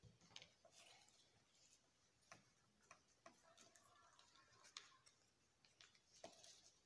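Faint paper handling: soft rustles and several sharp clicks and crinkles as a sheet of paper is folded and creased by hand on a table-top.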